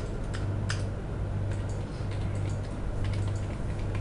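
Computer keyboard typing: scattered, irregular keystroke clicks over a steady low hum.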